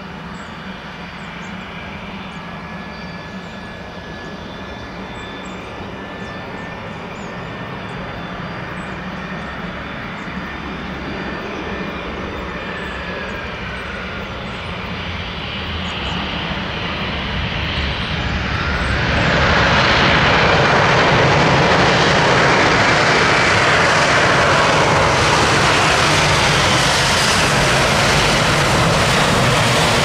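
Airbus A319 jet engines whining on final approach and growing steadily louder as the airliner comes in. About two-thirds of the way through the sound jumps suddenly to a loud, sustained roar after touchdown, typical of reverse thrust on the landing roll.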